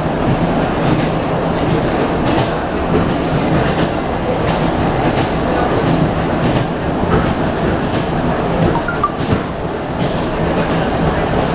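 Wheel clatter and running rumble of an ED9M electric multiple-unit train under way, heard from inside the passenger car: a steady rumble with irregular clicks as the wheels pass over rail joints.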